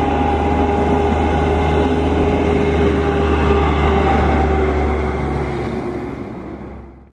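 Pratt & Whitney PW1100G geared turbofans of an Airbus A321neo running at taxi power: a steady whine over a low rumble and a rushing hiss, fading away near the end.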